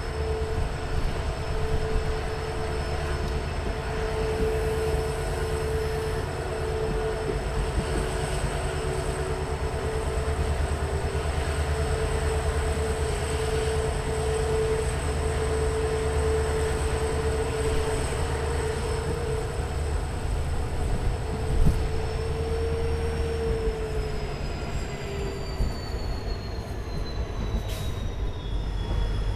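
WDP4 diesel-hauled passenger train running on the rails, heard on board: a steady low rumble with a constant hum over it. Over the last several seconds the hum fades and a high whine slides down in pitch.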